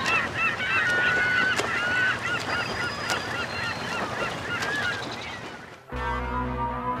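A flock of birds calling, many short honking calls overlapping, over a steady rush like surf on a beach. The calls stop abruptly about six seconds in, and sustained music begins.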